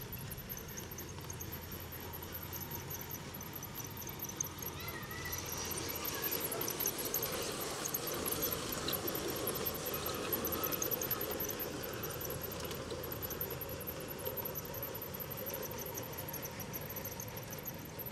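G-scale garden railway train running past on outdoor track; its running noise swells for several seconds about a third of the way in as it passes close, then fades. High-pitched squeaking and chirping continues throughout.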